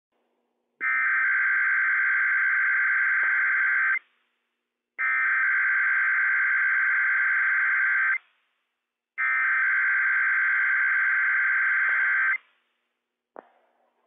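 NOAA Weather Radio Emergency Alert System SAME header for a Required Weekly Test: three identical bursts of rapid digital data tones, each about three seconds long with a second's gap between them. A short click follows near the end.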